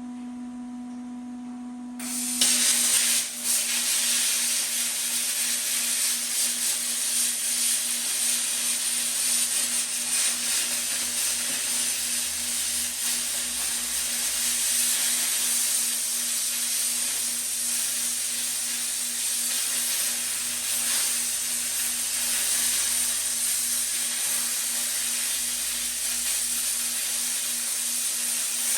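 Metal-cutting torch starting up about two seconds in and hissing steadily as it cuts a circular hole through a steel plate, with a steady low hum underneath.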